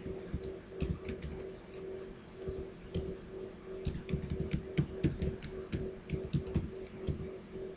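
Typing on a computer keyboard: irregular keystrokes in uneven runs, over a faint steady hum.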